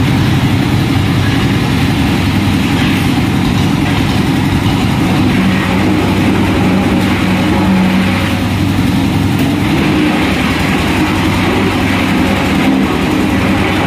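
An engine idling steadily, a constant low hum with a rough noise over it.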